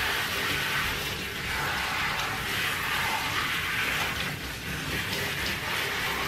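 Steady hiss of running water from a handheld shower head spraying onto a small dog's wet coat in a bathtub.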